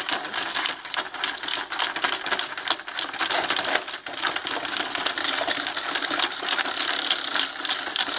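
Small geared motor of a battery-operated Chubby Puppies toy puppy running as it walks across the plastic playset: a steady, rapid clicking whir with plastic rattling.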